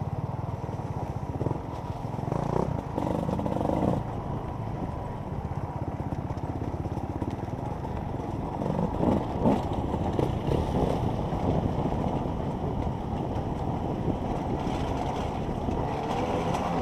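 Enduro motorcycle engine running steadily, sounding muffled, with a few knocks and rattles from the bike over rough ground early on and around the middle.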